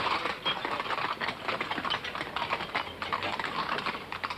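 Horse-drawn wagon loaded with metal beer kegs clattering along the street: a dense, irregular run of sharp clacks and knocks from the horse's hooves and the wagon.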